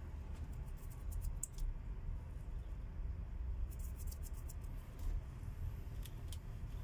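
Calico cat purring close to the microphone, a steady low rumble. Three short clusters of small high clicks come over it, about half a second, four seconds and six seconds in.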